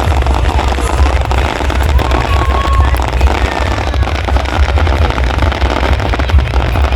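Many fireworks and firecrackers going off at once in a continuous, dense crackle over a steady low rumble, with a short whistle about two seconds in.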